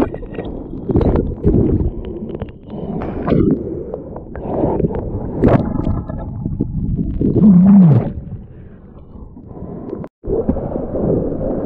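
Surf water churning and splashing right against a mouth-mounted action camera as it goes under and back up through the waves, muffled while underwater. A short, low sound falling in pitch comes a little past halfway, and the sound cuts out for a moment just after 10 s.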